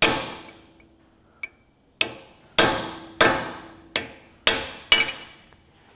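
Hammer blows on a cold chisel held against the steel wear sleeve of a John Deere 4WD tractor's front hub: seven sharp metallic strikes, each ringing briefly. One comes at the start and the other six follow after a two-second pause, about one every half second. The chisel is expanding the old wear sleeve so it can be pulled off.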